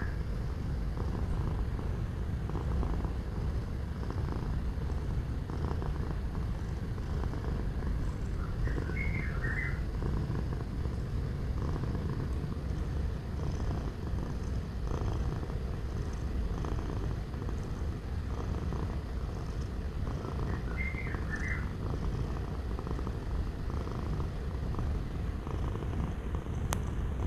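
Domestic cat purring: a continuous, steady low rumble. Two brief higher chirps come through about nine and twenty-one seconds in.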